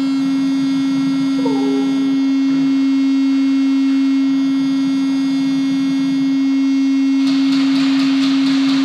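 Anti-fog fan in airsoft goggles buzzing steadily right at the microphone, a low hum with a stack of overtones. Near the end, a quick run of sharp clicks over a hiss.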